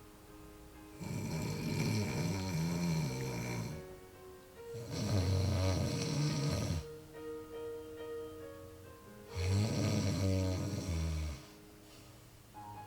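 A person snoring: three long, rough snores of two to three seconds each, over background music with held notes.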